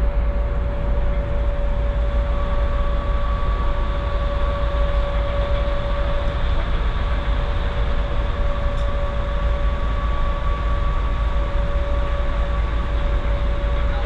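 Steady deep rumble of running machinery with a constant droning hum over it, heard from inside a large vehicle.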